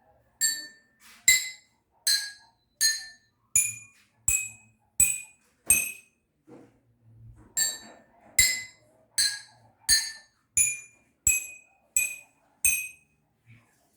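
Eight water-filled drinking glasses struck one after another, each giving a short clear ring, the pitch climbing roughly along the row from the fullest glass to the emptiest; the run of eight strikes is played twice. Less water in a glass gives a higher note.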